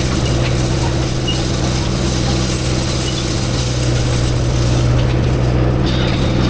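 Farm tractor's diesel engine running at a steady speed, a constant low drone with no change in pitch.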